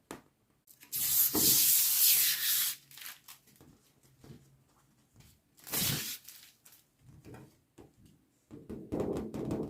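Thin acrylic picture-frame sheet being handled, making rubbing, scraping sounds. There is a long rub of about two seconds starting a second in, a shorter one midway, and a few smaller rubs and clicks near the end.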